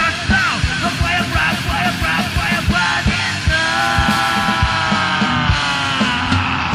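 Fast rock music with a driving drum beat and a singing voice; around the middle a long held note sinks slightly in pitch.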